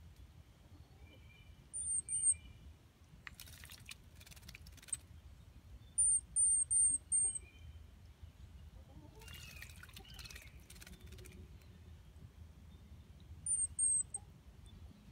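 A tufted titmouse splashing in a shallow birdbath in two bursts of about a second and a half each, with high, thin bird chirps in short runs of two to four notes, three times.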